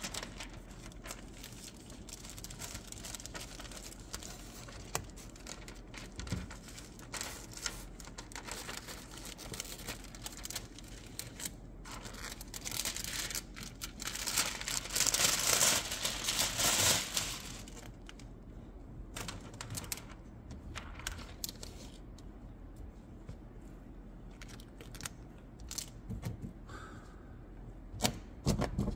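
Window tint film crinkling and rustling as it is unrolled and pressed by hand onto the wet rear glass, with scattered small ticks and a louder stretch of rustling about halfway through.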